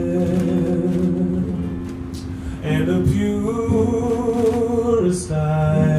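A man singing a slow song in long held notes, accompanied by an acoustic guitar. The singing dips about two seconds in, then rises to a higher held note that stops shortly before the end.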